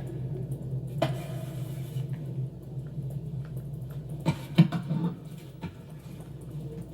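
A steady low hum with a few sudden knocks, the loudest about four and a half seconds in.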